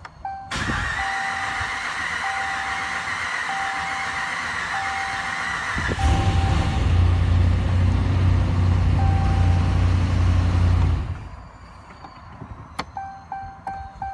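Ram pickup engine cranked on the starter for about five seconds, with a warning chime sounding about once a second. The engine then catches and runs with a deep, steady idle for about five seconds before it is switched off. A click follows, then a quick repeating chime.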